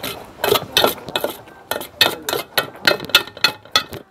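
Fried noodles (mie goreng) being slurped into the mouth in a quick, irregular run of short sharp sucks, about a dozen in four seconds.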